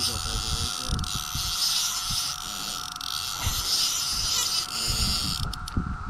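Chorus of Brood X periodical cicadas: a steady, unbroken droning whine. Underneath it runs an irregular low rumble.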